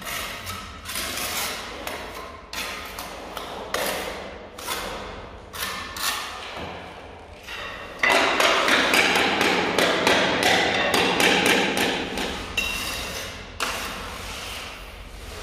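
A trowel scraping and slapping mortar onto the back of a ceramic skirting-tile strip in short separate strokes. About halfway through comes a louder stretch of rapid tapping and rubbing, lasting about five seconds, as the tile is pressed and bedded against the wall.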